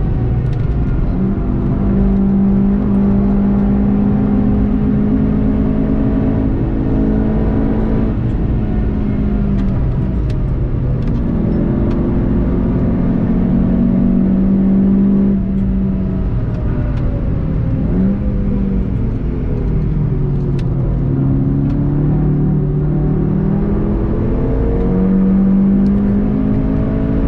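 VW Golf 7.5 GTI TCR's turbocharged 2.0-litre four-cylinder heard from inside the cabin, its note holding steady for a few seconds and then falling and rising again several times as the car slows.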